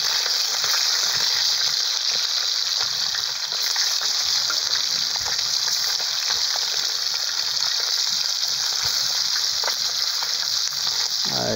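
Pieces of traíra fish deep-frying in hot oil in a disco (plow-disc frying pan): a steady, loud sizzle with scattered small crackles.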